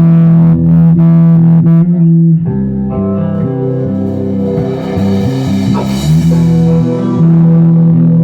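Instrumental jam on guitar and bass: long, held notes that shift in pitch every second or two.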